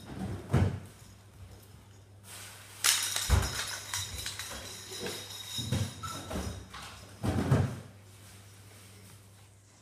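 A small plastic toy ball is thrown and rolls and bounces across a tiled floor: several dull thumps, with a rattling jingle about three seconds in, over a steady low hum.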